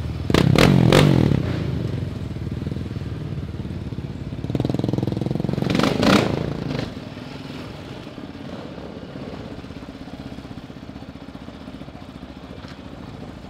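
Yamaha Raptor 700 ATV's single-cylinder engine running while riding. It surges louder under throttle twice, about half a second in and again around five to seven seconds in, then settles to quieter low-speed running.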